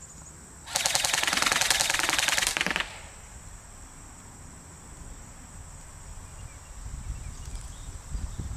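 GFM4 airsoft rifle firing one full-auto burst of rapid shots lasting about two seconds, starting just under a second in.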